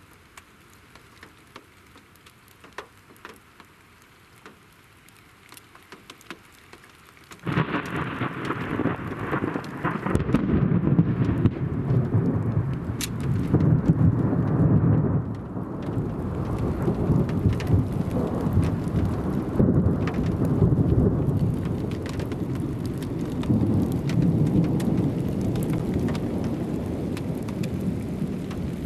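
Scattered raindrops ticking in a quiet night, then about seven seconds in a sudden clap of thunder that rolls on as a long, loud rumble, swelling and easing for the rest of the time, with rain falling throughout.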